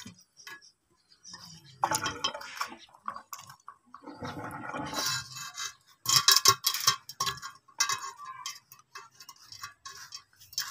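Metal rod scraping and clinking inside the iron barrel of a hand water pump as the plunger washer is worked upward, in irregular bursts of rough scraping. The washer is stuck and will not come out.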